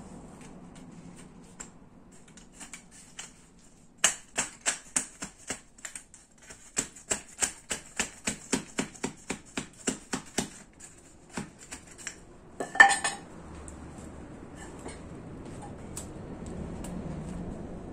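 A quick run of sharp metal-on-wood taps, about three a second with a short pause partway, as a small wire-mesh box is knocked down over a square wooden stick to shape it. A louder crunch of the mesh follows near the end.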